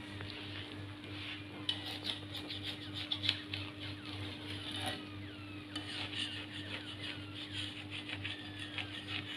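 Thin regag bread crackling as it cooks on a hot metal griddle, with a spatula scraping and lifting its edge: a dense run of small irregular clicks and crackles over a steady low hum.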